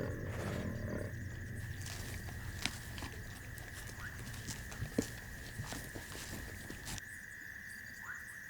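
Leopard's low growling, with scattered knocks and rustles, as it seizes a monitor lizard in a tree, over a steady high trill of night insects. The growling drops away about seven seconds in, leaving the insects.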